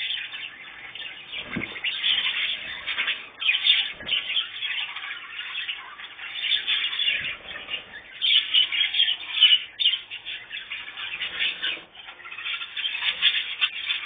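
Several small cage birds chirping and twittering continuously, with a few soft thumps along the way.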